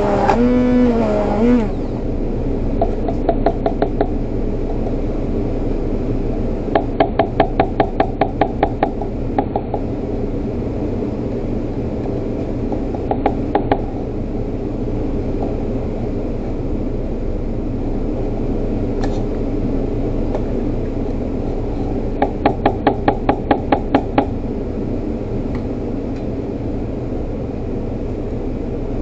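Stainless stick blender running in mayonnaise, stopping a little under two seconds in. Then four short runs of quick metal taps, about five a second, as the blender's shaft is knocked against the stainless jug, over a steady hum.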